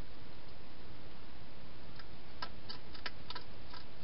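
European hedgehog feeding at a bowl inside a plastic feeding box: a run of small, sharp clicks from about halfway through, over a steady hiss.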